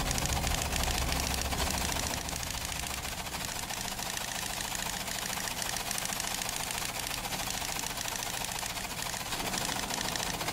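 Typewriter clattering rapidly and continuously as keys are struck in quick succession, with a low hum in the first two seconds.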